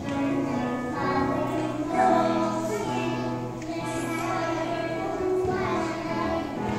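Young kindergarten children singing a song together as a group, a steady chorus of small voices.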